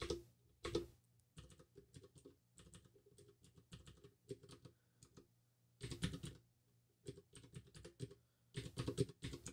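Computer keyboard typing: runs of quick keystrokes with short pauses between them, and a few denser flurries of keys.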